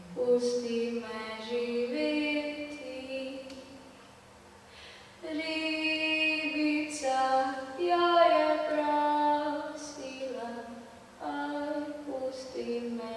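Two women singing a cappella in sustained, wordless-sounding phrases, with a soft dip between phrases near the middle.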